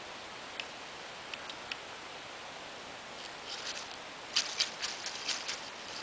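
Dry leaf litter crackling: a few scattered sharp ticks, then a quick run of louder crackles over the last two seconds, over a steady hiss.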